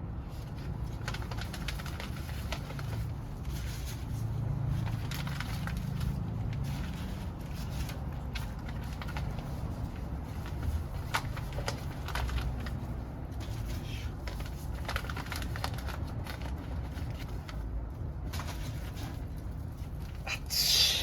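Wood fire burning in a secondary-combustion wood-gas stove, crackling with scattered sharp pops over a low steady rumble. Near the end comes one louder, hissing burst.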